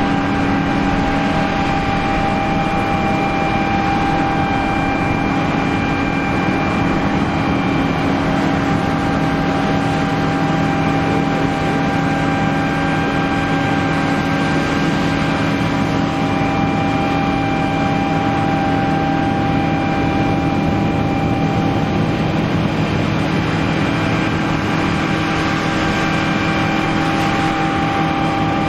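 Combine harvester working a wheat field: a steady engine and machinery drone with a constant whine on top.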